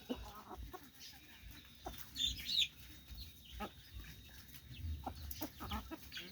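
Free-range chickens clucking as they eat termites, with scattered short clicks throughout and one louder call about two seconds in.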